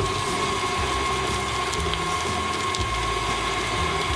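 KitchenAid tilt-head stand mixer running steadily with its flat beater, a steady motor whine over the gear noise, creaming butter, powdered sugar and eggnog into frosting.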